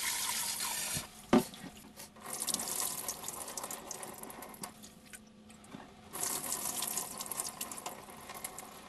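Water running from a tap into a sink, stopping and starting again twice, with a sharp knock about a second and a half in.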